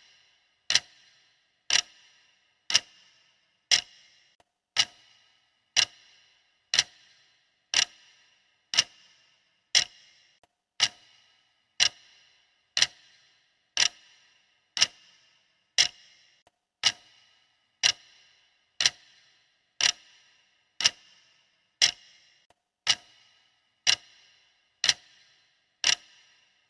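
Footsteps sound effect: single hard-soled steps clicking on a hard floor, evenly paced at about one step a second, each with a short bright ring.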